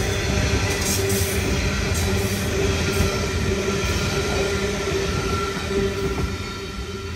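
Coal train's hopper wagons rolling past on the rails: a steady rumble of wheels with a steady whining tone over it, fading near the end as the last wagons move away.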